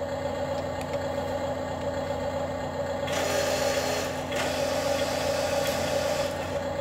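Toy RC dump truck's built-in simulated diesel engine sound, a steady electronic idling hum from its small speaker, becoming brighter and harsher from about three seconds in.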